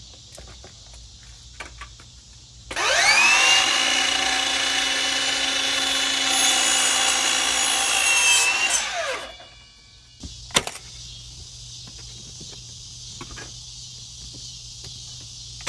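Electric power saw spinning up with a rising whine, running steadily for about six seconds, then winding down. A single sharp snap follows about a second later.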